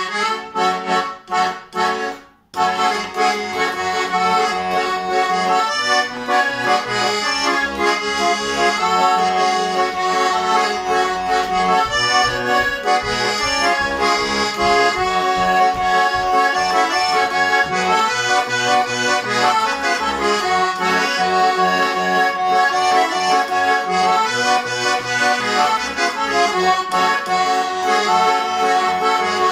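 Shuya-made Chaika-2 garmon (Russian button accordion) played, freshly retuned with its reeds and valves reglued: a few short detached chords in the first couple of seconds, then a continuous folk tune with right-hand melody over left-hand bass and chords.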